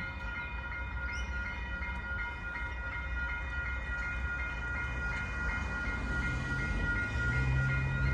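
An approaching Pacific National NR-class diesel-electric freight locomotive, its low rumble growing louder, with the engine note coming up about six seconds in. Several steady high tones and a regular tick about twice a second run above it.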